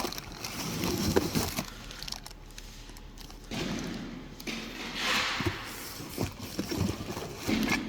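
Rustling and a few light knocks as engine parts and their packaging are handled.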